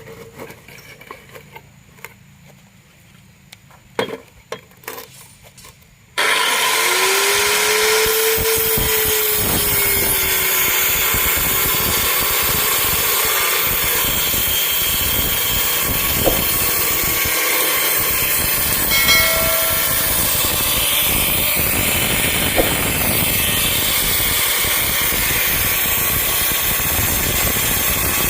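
Handheld circular saw switched on about six seconds in, then running loud and steady as it cuts through plywood. A few knocks come before it starts.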